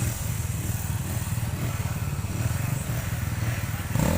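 Motorcycle engine running at low speed with a steady, pulsing drone, its note shifting near the end.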